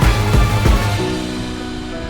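Background music: drum beats for about the first second, then the drums stop and a held chord carries on.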